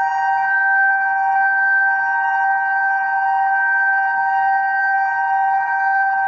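Reverse-wired FuryBolt 1003A fire siren sounding a loud, steady chord of several tones at full speed, holding its pitch without rising or falling.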